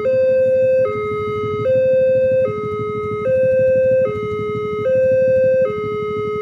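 Railway level-crossing warning alarm sounding a loud two-tone electronic hi-lo signal, switching between a higher and a lower note about every 0.8 seconds, over a steady low rumble.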